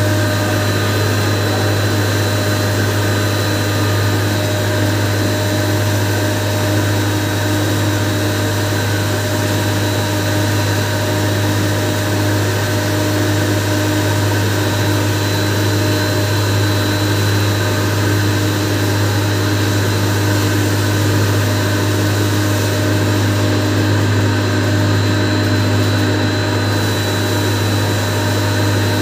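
A sugar pulverizer (grinding mill) runs at full speed, grinding granulated sugar as it is fed into the hopper. It makes a steady, loud hum with a thin high whine above it.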